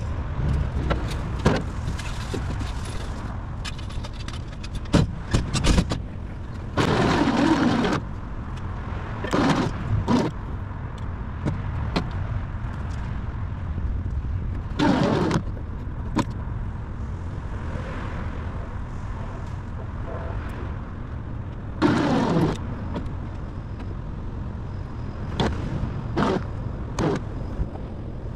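A scrap Pontiac Grand Am being winched up onto a steel diamond-plate deck: a steady low drone from the winch, broken by several loud scraping creaks as the car and cable strain, the longest about seven seconds in.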